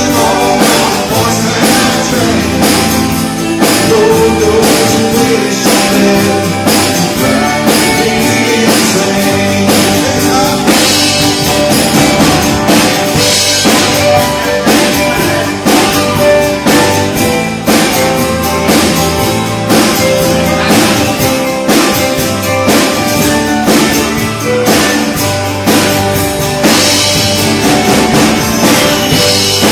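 Live band playing a rock song, with drum kit and electric guitar over bass.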